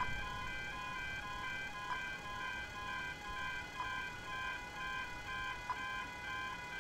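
Railway level-crossing warning alarms sounding while the boom gates are down: a steady, fast repeating electronic ringing made of several tones at once, with a light click about every two seconds.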